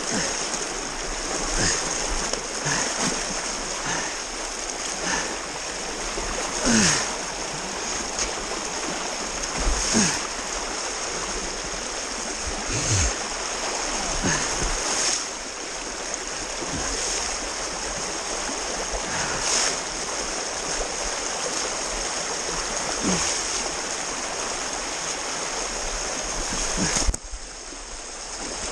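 A small river rushing steadily, with irregular splashes every second or two as legs wade through the current.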